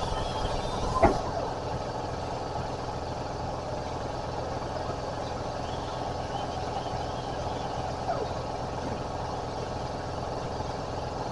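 Electric welding arc crackling steadily as weld is built up on a broken exhaust bolt stub in an aluminum cylinder head, with one sharp click about a second in.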